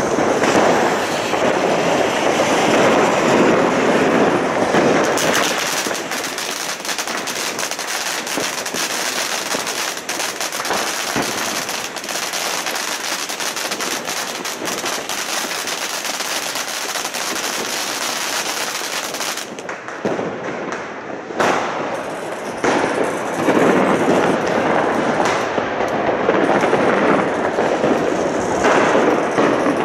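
Fireworks crackling and popping without a break, with a ground fountain spraying sparks; the crackling is densest in the middle, eases off after about twenty seconds, and a rushing hiss takes over near the end.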